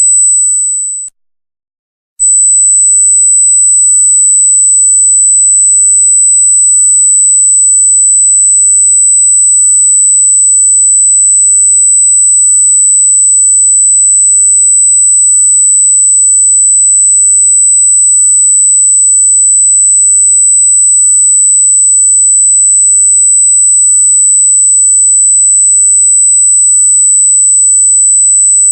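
A loud, steady, very high-pitched electronic pure tone. About a second in it fades and cuts out for about a second, then comes back and holds unchanged.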